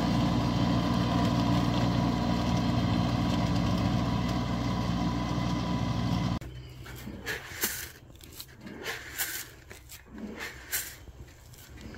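A compact tractor's engine runs steadily while it pulls a rotary tiller through the soil. After about six seconds it stops abruptly and gives way to several short, separate hissing swishes as handfuls of seed are broadcast and shower onto the tilled ground.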